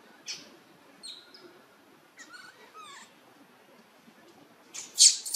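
Newborn macaque infant crying with thin high-pitched calls: a couple of short squeaks, a run of falling chirps in the middle, and the loudest cries near the end. The crying of a baby calling for its mother.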